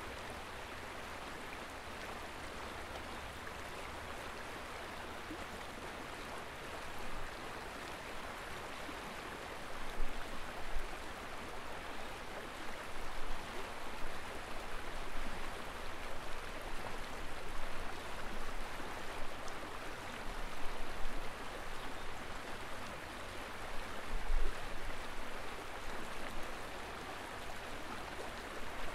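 Steady rushing noise of flowing river water. From about ten seconds in, irregular low rumbles of wind gust on the microphone.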